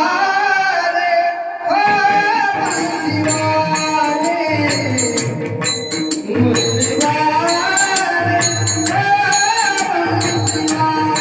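Devotional bhajan singing: a solo voice holding long, ornamented notes that glide up and down. From about two and a half seconds in, jingling metal hand percussion and a low drum keep a steady beat beneath it.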